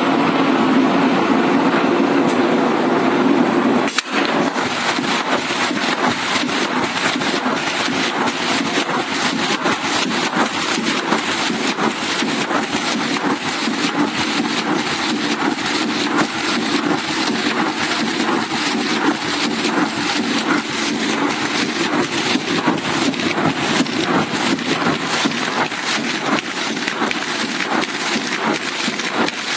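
Corrugated-board feeding and printing machine running, with a steady machine hum. About four seconds in the sound changes to a dense, fast clatter of rapid clicks as the sheets are fed through the rollers.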